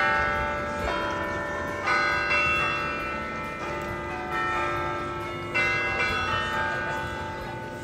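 Carillon bells in a tall bell tower playing a slow tune. Single notes at different pitches are struck one after another, each ringing on under the next, and the ringing fades a little toward the end.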